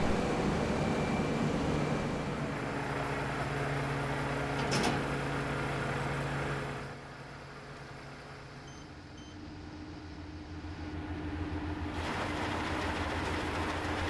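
New Holland combine harvester running, its belt drives and pulleys spinning with a steady mechanical hum. About halfway through the hum drops to a quieter level and two short beeps come in quick succession as the cab touchscreen is tapped. The machine noise then rises again near the end.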